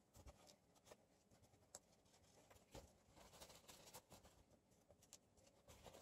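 Faint rubbing and rustling as small metal potentiometer parts are cleaned of old grease, first with a cotton swab and then wiped with a paper towel, with a few light clicks and taps.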